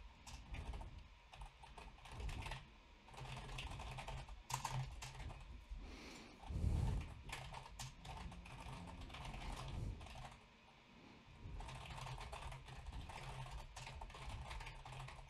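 Typing on a computer keyboard: quick, irregular runs of key clicks, with a brief pause a little past two-thirds of the way through.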